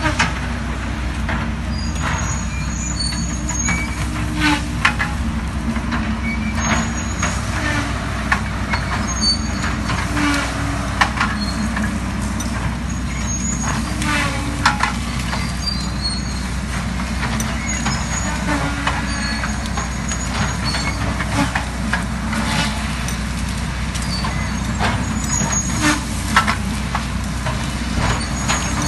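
Heavy diesel vehicle engine running steadily, with repeated short metallic squeals and creaks over the rumble.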